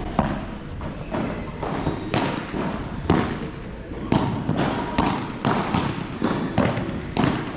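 Padel rally: racket hits and ball bounces, a sharp knock every half second to a second.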